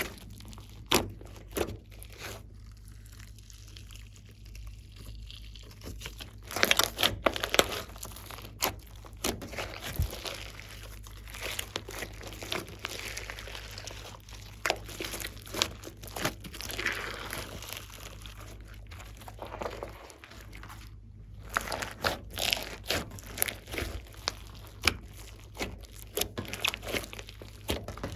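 Glossy slime being squished and kneaded by hand, giving a run of sticky clicks, pops and crackles, densest about seven seconds in and again toward the end.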